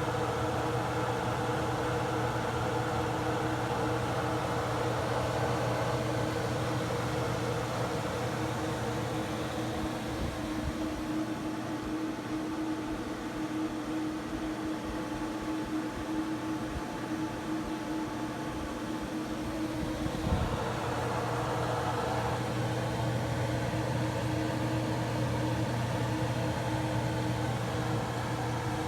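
Steady mechanical drone with a constant low hum, thinning a little in the middle and filling out again about two-thirds of the way through, with a single brief knock about 20 seconds in.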